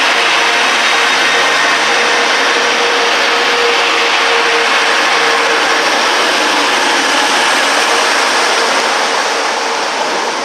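First TransPennine Express Class 185 diesel multiple unit moving along the platform at close range, its diesel engine running with a steady drone under the rumble of wheels on rails, easing off slightly near the end.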